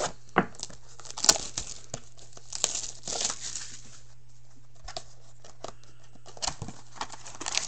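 Plastic shrink-wrap on a hockey card box crinkling and tearing as it is peeled off, with the cardboard box being handled: a run of irregular crackles and clicks, and a longer tearing rustle about three seconds in.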